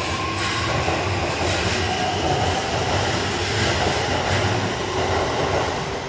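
Subway train running steadily through an underground station on the far track, with a continuous rumble of wheels on rails and motor noise.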